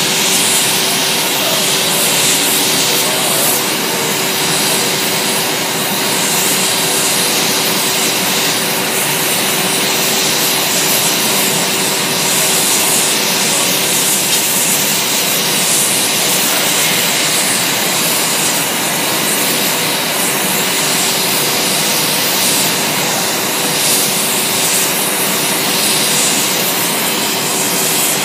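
Steady rushing of a ring of gas burner jets firing around a glass-blowing mold, with a steady hum underneath.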